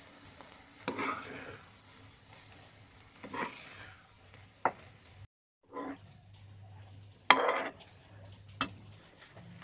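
A spatula scraping thick halwa out of a non-stick kadhai into a ceramic bowl: scattered scrapes and a few sharp taps of the spatula against the pan and bowl. The sound drops out briefly about halfway.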